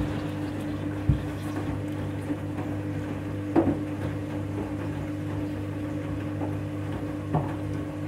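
Washing machine drain pump running with a steady hum as it pumps the wash water out. A few short knocks break in, about a second in, halfway through and near the end.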